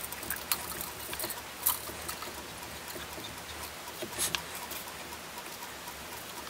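Small clicks and scratches of steel piano wire and pliers being handled while the wire is bent into a hairspring spiral. Two sharper clicks come about a second and a half and about four seconds in.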